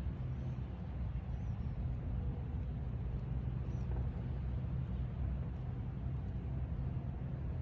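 Steady low outdoor background rumble, with a few faint high chirps.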